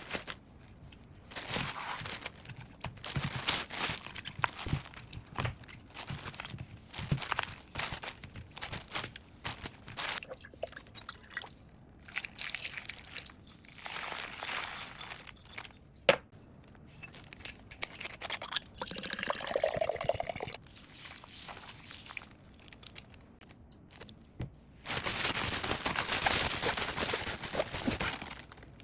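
Kitchen food-preparation sounds while making oiji: irregular rustling, crinkling and handling noises, a sharp click about halfway through, and a steady rush of liquid for about three seconds near the end.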